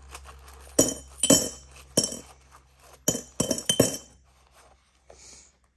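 Loose coins clinking, about six sharp separate clinks with a short ring over the first four seconds.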